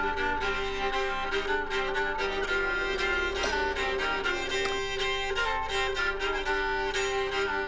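Background music led by violin, with bowed strings over a steady beat.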